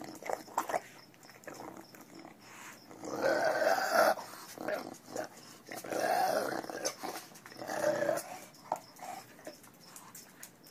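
English bulldog making throaty vocal sounds close to the microphone, three longer ones of about a second each in the middle, with short clicks between them.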